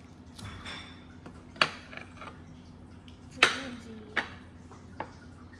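Plates and glass serving dishes clinking as they are set down and moved on a glass-topped table: a few sharp clinks, the loudest about three and a half seconds in, over a faint steady hum.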